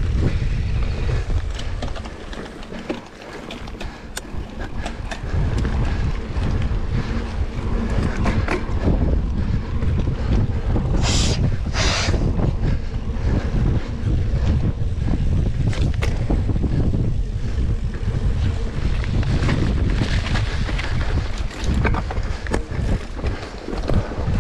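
Wind buffeting the microphone in a steady low rumble, with scattered small clicks and two short high hisses a little under halfway through.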